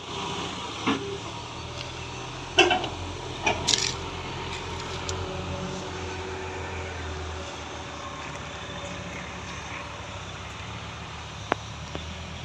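Diesel engines of a crawler excavator and dump trucks running steadily. A few sharp clunks come in the first four seconds, the loudest about two and a half seconds in, as the excavator loads earth into a truck, and there is a single click near the end.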